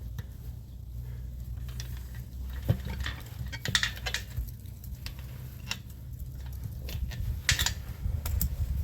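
Scattered light metallic clinks and knocks from hand work on a tire and wheel, as a tire pressure sensor and its pull-through tool are worked into the valve-stem hole, over a steady low hum.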